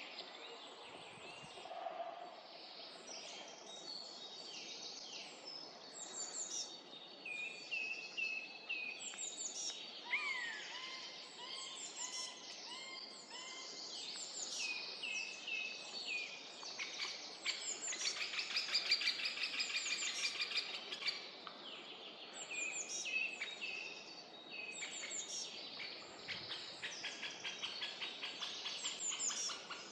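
Several small songbirds calling and singing over one another, high chirps and short phrases throughout, with fast rattling trills about two-thirds of the way in and again near the end.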